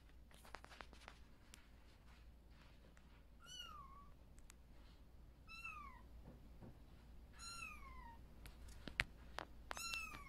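Young kitten meowing four times, about two seconds apart, each a high mew that slides down in pitch. A few small clicks fall between the calls, the sharpest shortly before the last meow.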